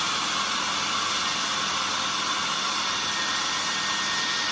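Mini portable hair dryer running steadily on its third and highest airflow setting, a constant rushing of air.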